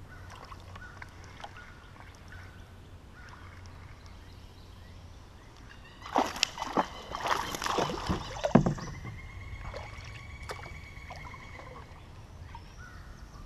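Water splashing and knocking around a plastic kayak, in a loud cluster of splashes and thumps about six to nine seconds in, followed by a steady high whine lasting a few seconds.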